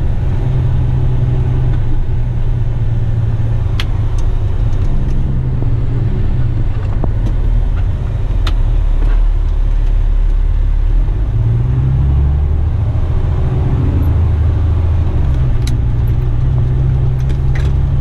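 Diesel engine of a Western Star tipper truck heard from inside the cab, a steady low drone; a little past halfway the engine note rises as the truck pulls away and picks up speed. A few sharp clicks come through now and then.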